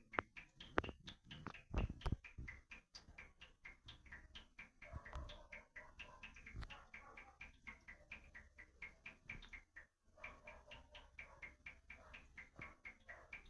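Water drops dripping, a quick irregular patter of small plinks, several a second, each with a brief ringing tone.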